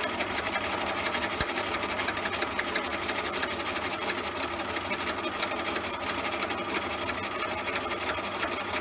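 Bernina 1008 sewing machine running steadily on a zigzag stitch, sewing chiffon ribbon onto fabric paper, with a rapid, even rhythm of stitches.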